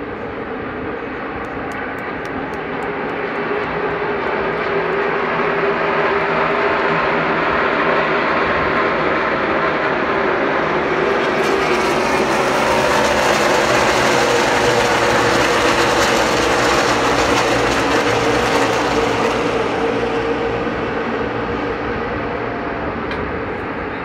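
NASCAR Cup stock cars' V8 engines running around the track; the sound swells as the field passes the grandstand, loudest about halfway through, then fades again.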